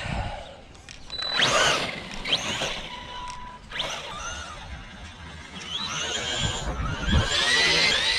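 Arrma Big Rock 3S RC monster truck's brushless electric motor whining in several bursts of throttle, the pitch rising as it speeds up and falling as it backs off.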